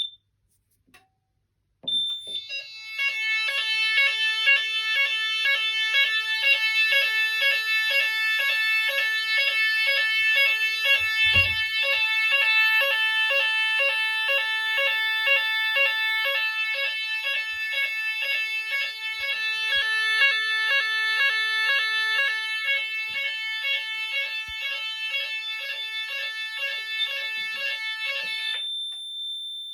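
Hochiki fire alarm sounder switching between its alarm tones. After about two seconds of quiet a steady high-pitched tone starts. A second later it changes to a lower, rapidly pulsing tone repeating a couple of times a second, and near the end it returns to the steady high tone.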